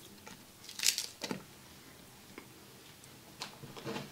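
Pieces of diced onion dropping into a ceramic slow cooker crock around a roast: a handful of light, scattered taps and clicks, the loudest about a second in.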